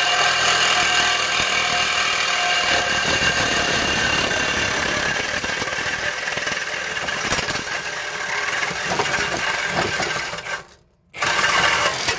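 Handheld power saw cutting through a car's steel exhaust pipe, running steadily with a harsh buzzing and grinding. It stops for about half a second near the end, then starts cutting again.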